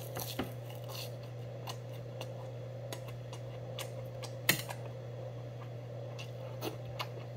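Close-up eating with metal chopsticks and spoon: chewing, with scattered small clicks and one sharper click about four and a half seconds in, over a steady low hum.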